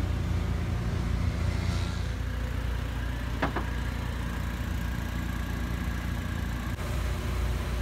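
Steady low engine hum, with a brief sharp double click about three and a half seconds in.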